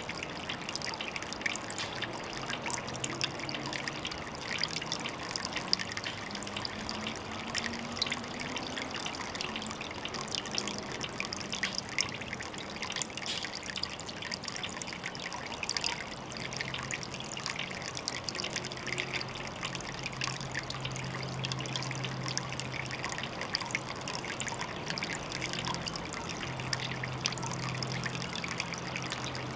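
Water trickling steadily, a dense patter of small splashes. A faint low hum sits underneath through the second half.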